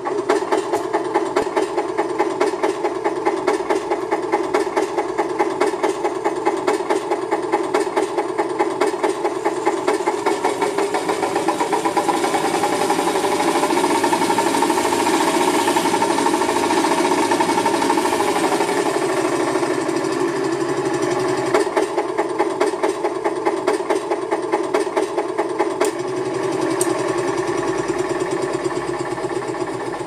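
Synthesized tractor engine sound from a TBS Micro RC sound module, played through small speakers, chugging at an even beat. It speeds up and brightens around the middle, then settles back to a slower chug.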